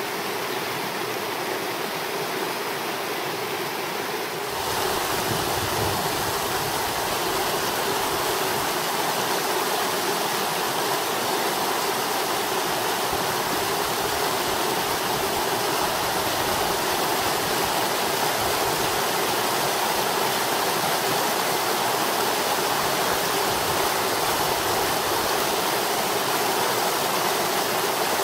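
Creek water running, a steady rushing noise. It grows slightly louder and fuller about four and a half seconds in.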